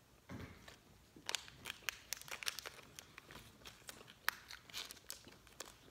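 A small candy wrapper crinkling and crackling in quick, irregular snaps as fingers peel and fold it open.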